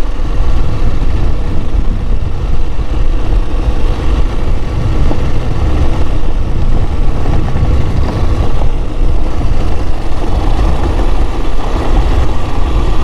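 Motorcycle being ridden along the road: the engine runs steadily under a dense, continuous rumble of wind on the microphone.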